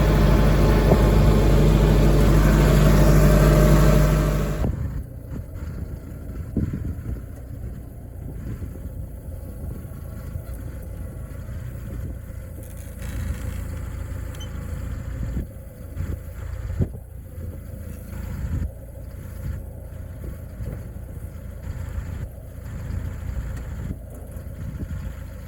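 A vehicle engine running loudly for the first four or five seconds, then dropping suddenly to a low rumble with occasional knocks and rattles.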